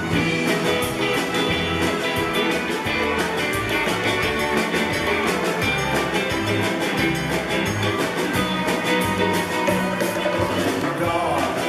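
Live rock band playing an instrumental passage with electric guitars, keyboard and a drum kit. Drums, cymbals and low bass notes come in right at the start over the guitar.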